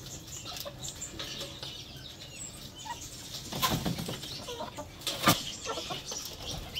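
Chickens flapping and clucking: a short burst of wing flapping a little past halfway as a young chicken flutters up, then a sharp knock about five seconds in, with soft clucks and chirps scattered throughout.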